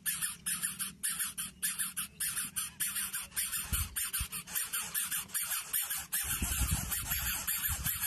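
Greater coucal nestling begging with rapid rasping hisses, repeated about two to three times a second while it gapes to be fed. Low rustling thuds from the nest join in about four seconds in and again over the last two seconds.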